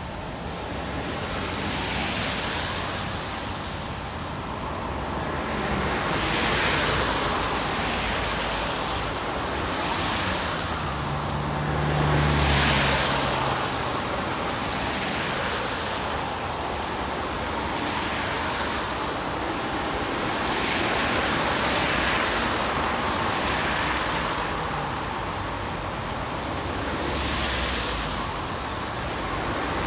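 Road traffic passing one vehicle after another, the tyre and road noise swelling and fading every few seconds. About twelve seconds in, a heavier vehicle passes with a low engine hum, the loudest moment.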